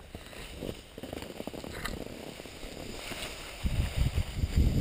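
Skis sliding and scraping over packed snow as the skier gets moving, then wind buffeting the GoPro's microphone, which turns loud and rumbling about three and a half seconds in as speed builds.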